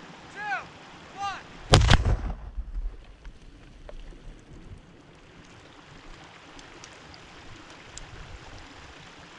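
A Tannerite charge on a beaver dam detonating in a sharp blast about two seconds in, followed by a low rumble that dies away over the next few seconds. A bird chirps several times, about once a second, before the blast.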